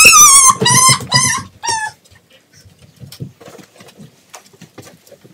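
Small dog giving four excited high yelping whines in quick succession, each falling in pitch, the first the longest. Faint light taps follow.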